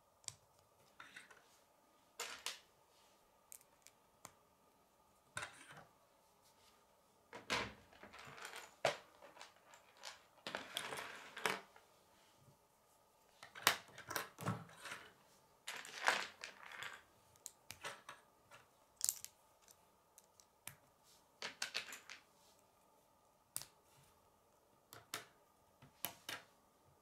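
K'nex plastic rods and connectors being handled and snapped together, with irregular sharp clicks and short scraping rattles, and pieces tapped down on a wooden tabletop.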